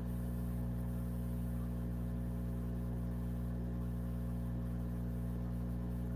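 Steady electrical buzz, a low hum with a stack of even overtones and faint hiss, picked up on an open call microphone; it cuts off abruptly near the end.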